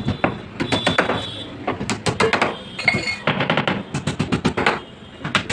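Quick runs of sharp knocks as a hammer drives small nails into the corner joint of a plywood box.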